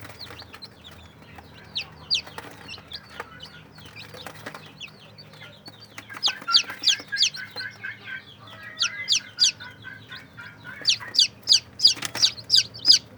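Newly hatched ayam kampung super chicks peeping as they start to feed: many short, high, falling peeps, coming in quick loud runs about halfway through and again near the end.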